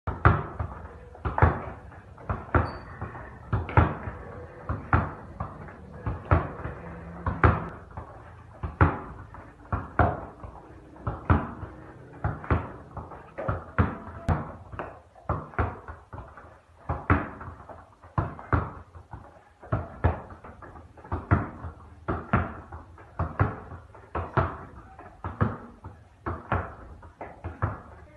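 Football being tapped, stopped and bounced off a tiled floor during dribbling moves. A long run of thuds comes about once every second or so, with lighter taps and shoe scuffs between them.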